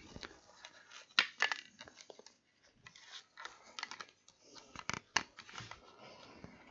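Faint clicks and rustles of a pair of earmuffs with safety glasses being handled and fitted over the ears, a few scattered ticks with a small cluster about a second in and another near five seconds.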